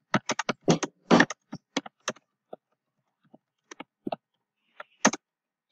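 Typing on a computer keyboard: a quick run of keystrokes in the first second and a half, then scattered single keystrokes, with one louder stroke about five seconds in.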